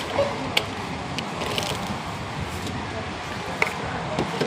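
Groceries being handled at a supermarket checkout, taken from a wire shopping basket and set on the counter: a few light knocks and clicks at irregular moments over the hum of the store and faint voices.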